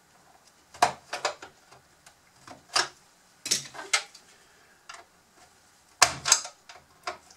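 Hard plastic parts of a Bruder CAT D11 toy bulldozer body clicking and knocking as they are handled and pried at to get the nose section off. The clicks come in small clusters, the loudest about a second in and around six seconds in.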